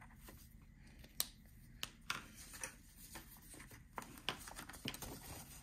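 Faint handling sounds at a desk: a few scattered light clicks and paper rustles as a pen is set down and paper dollar bills are picked up over a ring-binder planner.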